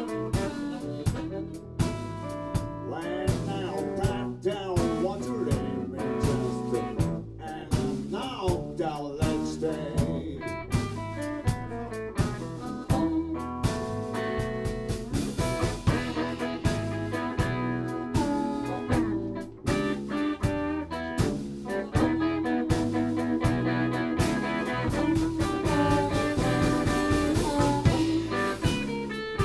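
Blues band playing live: electric guitar, bass guitar and drum kit, with a lead line that bends in pitch.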